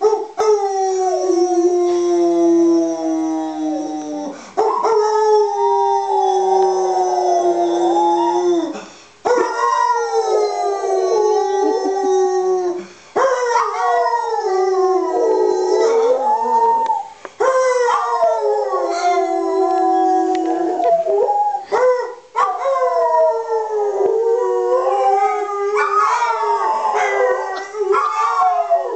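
A German Shepherd dog howling along with a man who is howling too. Both give a series of long howls several seconds each that glide up and down in pitch, with short breaks between them.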